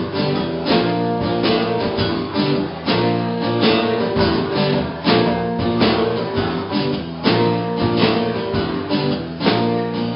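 Music: a guitar strumming chords in a steady rhythm.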